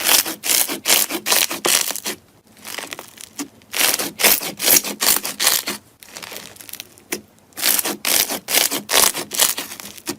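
Slime squeezed and kneaded by hand, giving about five bouts of dense crackling and popping, each a second or two long, with short pauses between.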